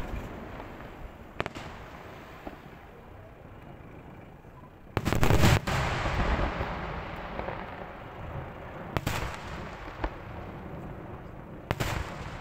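Fireworks display: scattered sharp bangs of exploding fireworks, the loudest a cluster of bursts about five seconds in, with further bangs near nine and twelve seconds. Each bang trails off into a long fading echo.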